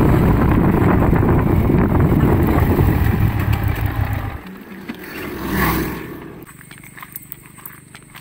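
Motor scooter being ridden: engine and wind rush on the microphone, dying away about four seconds in as it stops. After that it is quiet, with a few light clicks.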